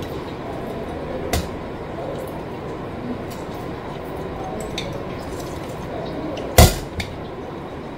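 Kitchen utensils and glassware knocking and clinking during lemon squeezing: a few light clicks, a knock about a second and a half in, and a louder double knock near the end, over a steady background noise.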